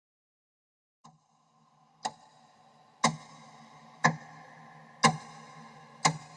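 Clock ticking, one sharp tick each second, the first one faint. Each tick leaves a faint ringing tone under it.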